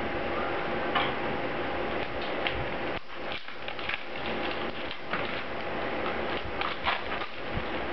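Plastic CD jewel cases being handled: irregular clicks and rattles as cases are opened and a disc is lifted out, over a faint steady hum.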